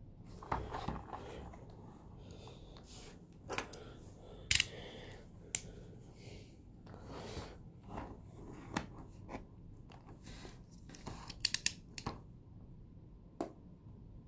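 Hands handling a cardboard figure box, with scattered sharp clicks and short rustles, and a snap-off utility knife slitting the tape seal on the box's end flap.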